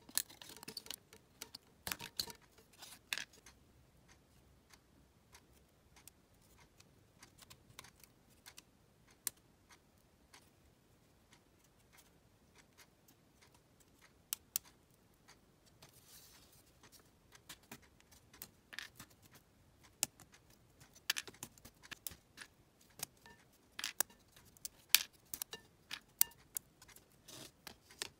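Thin laser-cut plywood puzzle pieces clicking and tapping against each other as they are handled and slotted together: irregular sharp clicks, busiest in the first few seconds and again through the last third, with a quieter stretch in the middle and a short soft rustle just after halfway.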